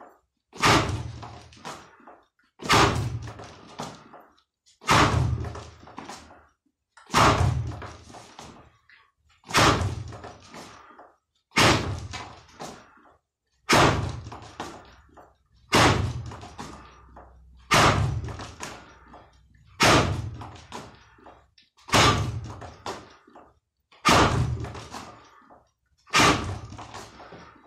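Kizami zuki lead-hand punches landing on a spring-mounted wooden makiwara post: thirteen sharp knocks, one about every two seconds, each trailing off over about a second as the post springs back.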